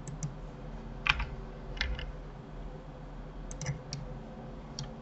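Computer keyboard keys and mouse buttons clicking, about ten scattered clicks, several in quick groups, over a low steady hum.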